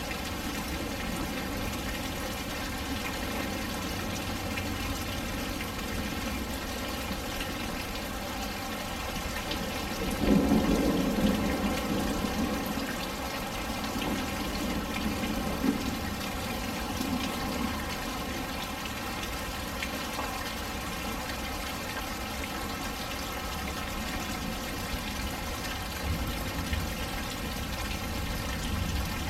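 Steady rain falling and splashing on a patio, with one rumble of thunder starting about ten seconds in and fading away over several seconds.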